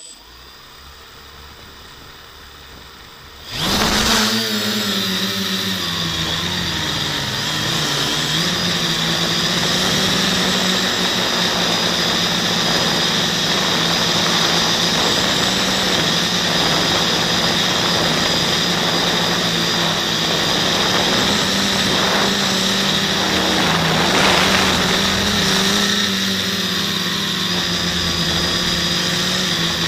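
Quadcopter's four brushless 2212 motors with 9x5 propellers spinning up sharply about three and a half seconds in, then running as a steady, loud, tonal buzz in flight, wavering slightly with throttle. Before the spin-up there is a quieter steady hum.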